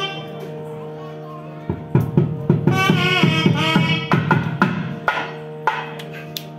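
South Indian temple music: a dense run of fast drum strokes from about two seconds in to about five seconds, with a pitched reed-pipe melody over a steady drone, then a few single strikes.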